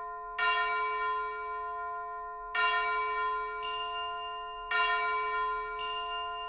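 Background music: a single bell-like tone struck three times, about two seconds apart, each ringing on and slowly fading. Twice between the strikes a high shimmering chime swells in.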